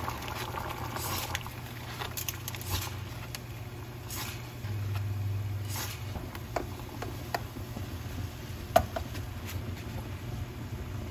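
Scattered light clicks and knocks of kitchen work while cooking, over a steady low hum; the sharpest knock comes near the end.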